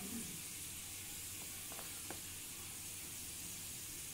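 Faint, steady sizzle of chopped garlic frying in oil, with a few light ticks about two seconds in.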